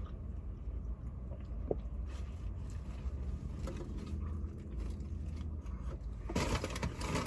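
Faint eating noises from a juicy burger over a steady low hum, then loud paper-like rustling starting about six seconds in.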